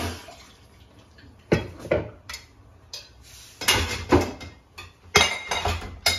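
Kitchen pots, pans and utensils being handled, with a run of irregular clanks and knocks.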